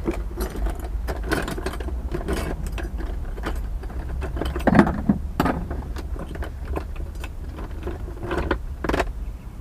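Irregular clinks and rattles of small hard parts knocked together while someone rummages through spare parts for a replacement air-conditioner capacitor, over a steady low hum.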